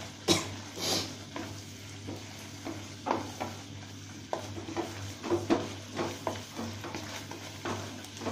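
Plastic ladle stirring a thick mustard masala gravy in a non-stick frying pan, with irregular scrapes and knocks against the pan, the sharpest within the first second.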